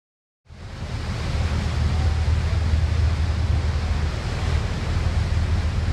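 Moving boat heard from its stern: a steady low engine drone under the rush of the wake and wind on the microphone, fading in about half a second in.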